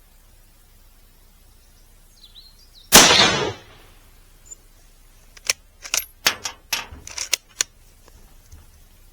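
Mauser K98 bolt-action rifle in 7.92×57mm firing a single shot, the report trailing off over about half a second. About two and a half seconds later comes a quick run of sharp metallic clacks as the bolt is worked to eject the case and chamber the next round.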